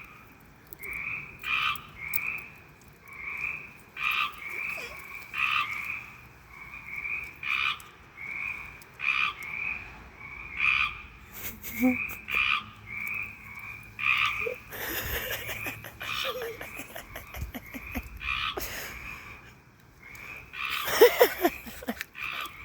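A frog calling from a hole in the ground: short croaking calls repeated steadily, about one or two a second. Bursts of rustling noise come through twice, the louder one near the end.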